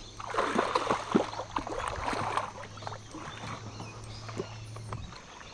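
Water splashing with sharp knocks on a canoe hull, loudest for the first three seconds and then quieter, as a big hooked saratoga thrashes beside the canoe.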